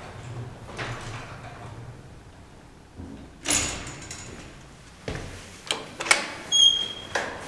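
Steel mesh landing door of an old traction elevator being handled and unlatched: a heavy metallic clunk about halfway through, then several sharp latch clicks, a brief high squeak and a final knock near the end.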